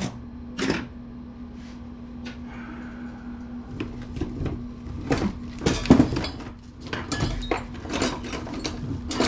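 Scattered metallic clinks, clicks and knocks of hand tools and desktop computer case parts being handled during disassembly, with the loudest knocks about six seconds in. A steady low hum runs underneath.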